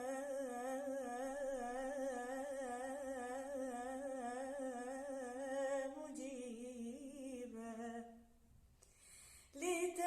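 A girl singing unaccompanied, holding one long note with vibrato for about six seconds. The note then steps lower and fades into a brief pause about eight seconds in, and she starts singing again just before the end.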